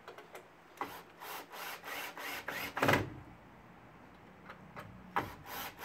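Cordless drill driving a wood screw tight into a timber support, in a string of short, noisy bursts from about a second in, the loudest just before three seconds, then a few more near the end.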